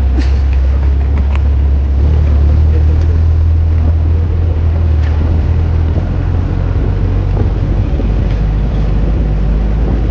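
Steady low drone of a 4x4's engine heard from its open rear bed while it drives, with wind rushing over the microphone.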